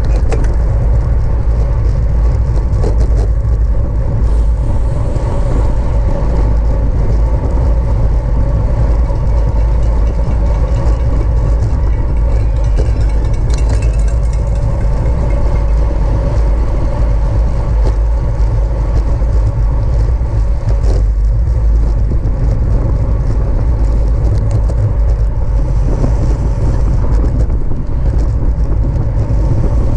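Wind rushing steadily over the microphone of a bicycle racer's onboard camera, with a faint tyre and drivetrain hum underneath as the bike rides at race speed.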